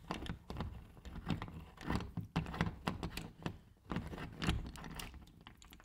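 Irregular small metallic clicks, taps and scrapes of a chrome bar mixer shower valve being worked off its threaded wall fittings by hand.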